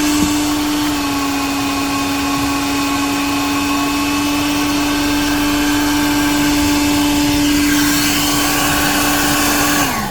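1980s Bon Aire 1-gallon wet/dry car vacuum running with a steady motor whine. The pitch steps down slightly about a second in. Right at the end it is switched off and the whine falls away as the motor winds down.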